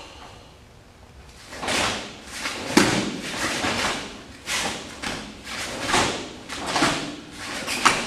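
Sharp swishes and snaps of a karate gi's heavy cotton with each block and punch, mixed with bare feet stepping and sliding on foam mats, about one burst every second after a short quiet start.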